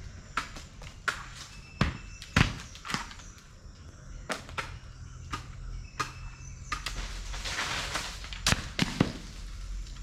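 Coconuts plucked from a palm dropping and thudding onto the ground: a dozen or so sharp thuds, the loudest about two and a half seconds in and again near the end, with a longer rustling noise in the second half.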